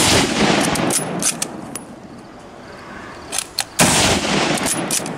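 Two rifle shots about four seconds apart, each followed by a rolling echo that fades over about a second. The rifle is an old one, fired one round at a time.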